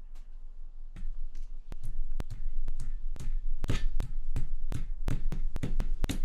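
Mechanical keyboard switches being pulled out of a KBD67 MKII plate: a quick, irregular string of sharp plastic clicks and knocks, some with a dull thud, starting about a second in.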